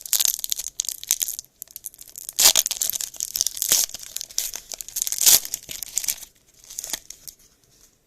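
Foil wrapper of a Topps Pro Debut baseball card pack being torn open and crinkled, in irregular crackly bursts that come in waves and die away about a second before the end.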